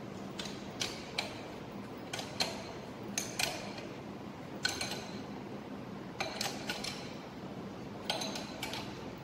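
Steel open-end wrench clinking against a bolt as it is fitted, turned and repositioned: short metallic clinks at irregular intervals, often in pairs.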